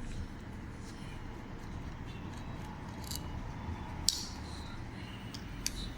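Small metallic clicks and taps of a titanium folding knife being handled and taken apart, with a sharp click about four seconds in and another near the end.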